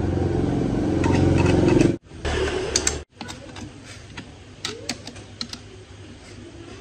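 A motor running with a steady hum that grows louder, then cuts off abruptly about two seconds in. After a brief loud burst come scattered light clicks and taps.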